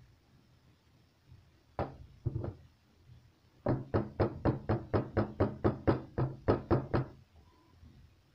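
A metal baking pan full of cake batter knocked down against the table: two knocks, then a quick even run of about a dozen at roughly four a second. This is the usual tapping that levels the batter and brings air bubbles out before baking.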